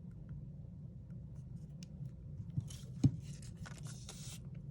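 Small plastic phone parts being handled during reassembly: a sharp click about three seconds in, with a second or so of scratchy rubbing around it, over a steady low hum.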